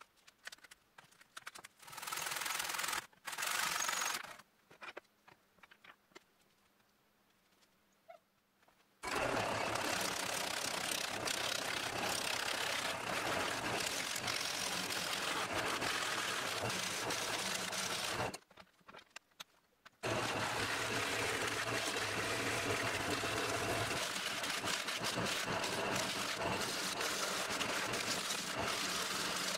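Wood lathe spinning a pine log blank while a gouge roughs it down, a steady loud hissing cut over the hum of the lathe. It starts about nine seconds in, stops for a couple of seconds a little past halfway, then carries on; before it there are only a few small clicks of handling and two short bursts of noise.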